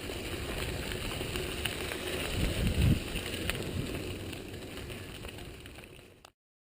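Wind over the microphone and tyre noise from a mountain bike rolling along a muddy dirt road, with a low bump near the middle. The sound fades away and cuts off about six seconds in.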